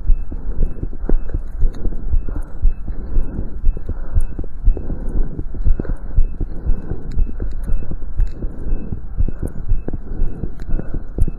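Human heartbeat picked up through a stethoscope during exercise: a quick, steady run of heart-sound knocks over a rumbling body noise.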